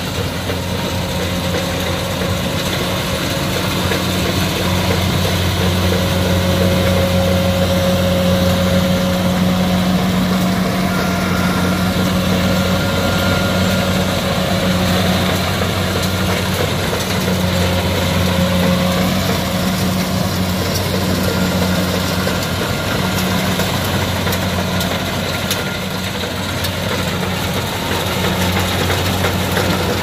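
Kubota DC-68G combine harvester running steadily as it cuts rice, its diesel engine a loud, even drone, with faint whining tones from the machine coming and going.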